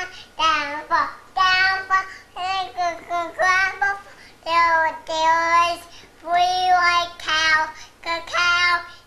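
A toddler singing in a high voice: short phrases of held, sung notes with brief breaths between them.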